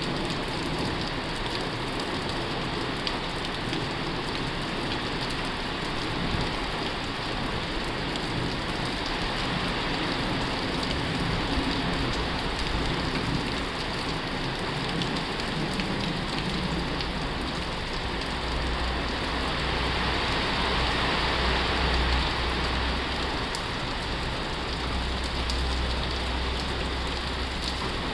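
Heavy rain drumming steadily on a tin roof. A low rumble joins in a little past halfway.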